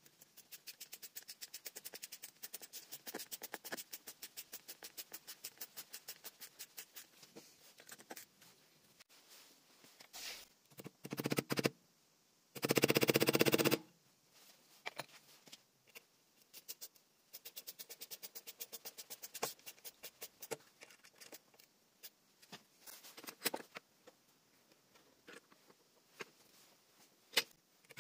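Hand-tool work at a bench vise: long runs of rapid, even clicking at about six a second, broken by a few louder scraping or knocking noises, the loudest a burst of about a second near the middle.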